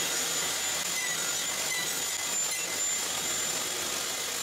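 Table saw running, its single blade nibbling away the wood between two kerfs as the board is worked across it to clear a finger-joint socket. A steady, even sound with a faint high whine.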